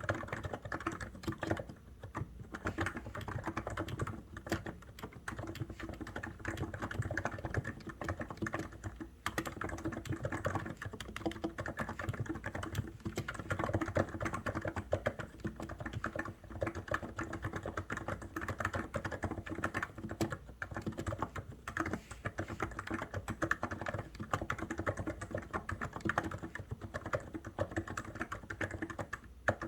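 Continuous fast typing on a COX Endeavour mechanical keyboard: a dense stream of keystrokes with a few brief pauses.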